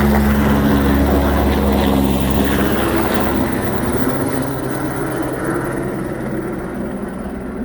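Helicopter rotor and engine at a wildfire, a steady beating drone that grows fainter over the second half as it moves away.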